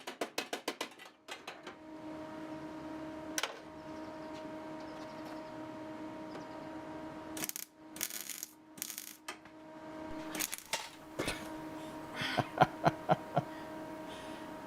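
A steady hum with two short bursts of welding crackle about halfway through, from tack-welding a steel radiator core support, followed by a run of sharp metallic clinks and knocks.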